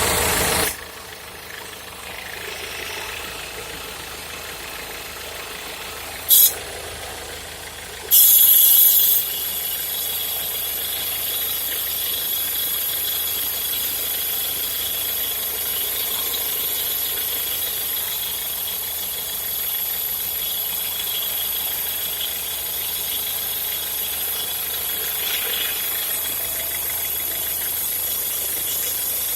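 Peugeot Partner 1.6 engine running with a strange noise. There are a few loud short bursts in the first nine seconds, then a steady sound with a thin high-pitched whine.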